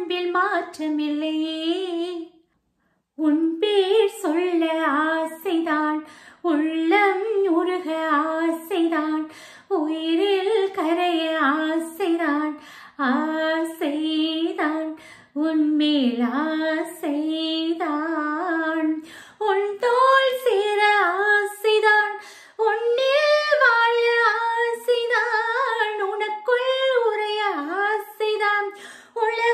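A woman singing unaccompanied, in long held notes with a slight waver, phrase after phrase with short breaks for breath. She stops briefly a couple of seconds in, and the melody moves higher about two-thirds of the way through.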